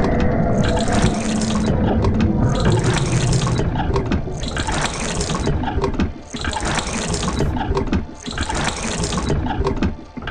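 Steam-driven machine sound effect: a low mechanical rumble with scattered clanks, and a burst of hissing steam about every two seconds, five times in all. It dies away near the end.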